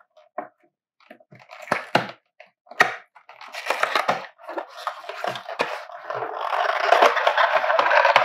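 Cardboard retail box being opened by hand: scattered clicks and scrapes as the end flap is pried open, then a longer scraping rustle as the inner tray slides out of the cardboard sleeve, loudest near the end.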